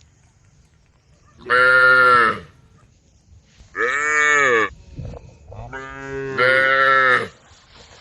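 Cows mooing: three loud, drawn-out calls a second or two apart, the last the longest, swelling louder partway through.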